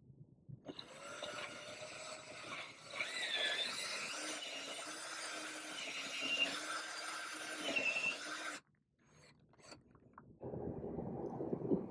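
Cordless drill boring a twist bit into old, weathered hardwood, a grinding noise with a whine and squeal from the bit, running for about eight seconds and cutting off suddenly. Another noise starts up a second or two later, near the end.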